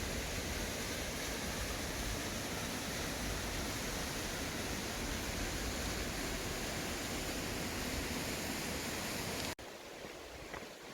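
Mountain valley stream rushing over rocks, a steady even rush. Near the end it cuts off suddenly to a much quieter background with a few faint high ticks.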